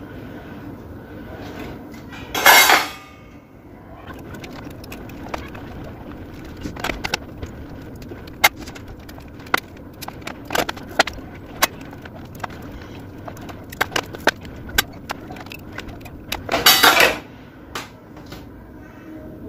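Small hard clicks and taps of tools and parts being handled on a workbench during hand soldering of push-button switches onto a circuit board. Two short, loud hissing sounds stand out, one a couple of seconds in and one near the end.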